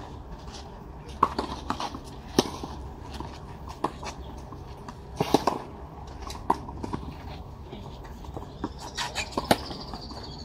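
Tennis rally on a clay court: sharp racket hits on the ball and ball bounces, eight or so irregularly spaced impacts, with a loud pair about five seconds in.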